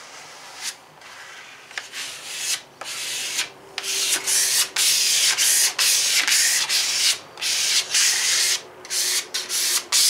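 A small plastic card is rubbed in repeated scraping strokes over a vinyl decal's transfer paper on a fiberglass trailer side, squeegeeing the water out from under a wet-applied decal. The strokes are soft at first and grow louder about three and a half seconds in, with short pauses between them.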